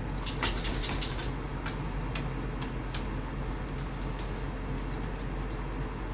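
Green microfiber duster head on an extension pole brushing and knocking along a ceiling fan blade: a quick cluster of scratchy rustles and clicks in the first second, then a few single clicks about half a second apart. A steady low hum runs underneath.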